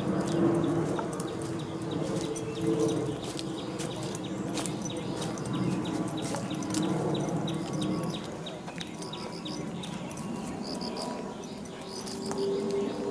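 Footsteps crunching on a dry, leaf-littered dirt trail through scrub, in an irregular run of short crackles. Near the end come short runs of high chirping calls.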